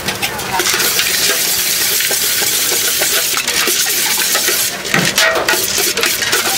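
Dry bhel mixture of puffed rice and sev being tossed and stirred by hand in a stainless-steel bowl: a steady crisp rustling and scraping, with many small clicks of grains against the metal.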